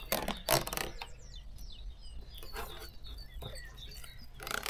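Small birds chirping and singing in the background. A few short knocks and clatters cut across the birdsong, the loudest about half a second in and another near the end.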